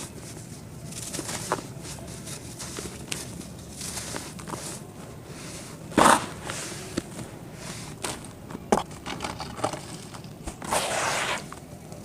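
Lumps of dry red dirt crumbling and being crushed: scattered crisp crunches and crackles, with one louder crunch about halfway and a longer gritty rustle near the end.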